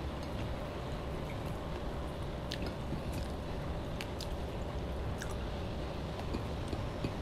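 Chewing with a few short wet mouth clicks and smacks, from a person eating rice and a saucy dish by hand, over a steady low hum.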